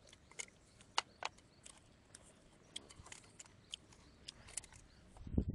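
Light scattered clicks of wooden chopsticks tapping against a food container, about a dozen irregular taps, with a louder dull bump near the end.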